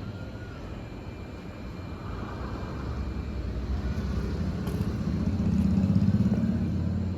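Low engine rumble that grows louder to a peak about six seconds in, then eases slightly.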